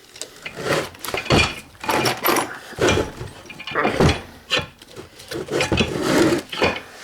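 A broken 1/2-inch-drive ratchet, its internals ruined, being handled: irregular metal clunks and clicks, about one or two a second.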